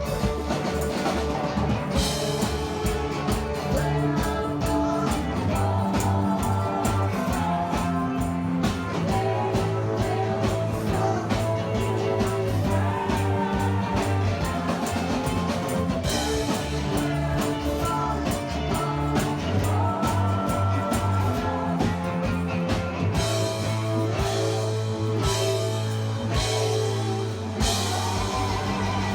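Rock music played on drum kit, guitar and bass, with a steady beat and a bass line that moves between held notes.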